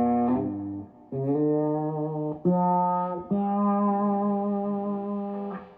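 Electric guitar played through a Dunlop Cry Baby 535Q wah pedal: four held notes, each ringing about a second or more with short breaks between. The pedal is passing sound when engaged again after its burned 100-ohm power-supply resistor was replaced.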